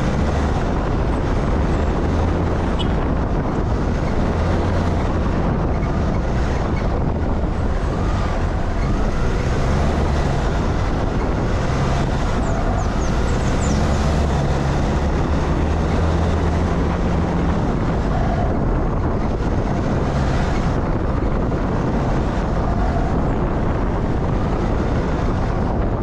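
A vehicle on the move: steady engine and road noise, with the engine's low hum shifting up and down every few seconds.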